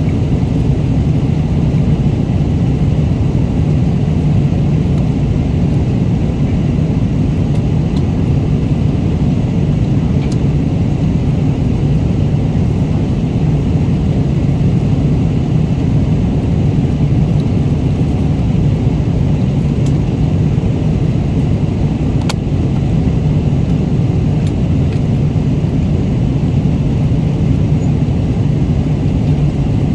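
Steady airliner cabin noise: the even, low rush of the jet engines and airflow heard from inside the cabin, with a few faint light clicks now and then.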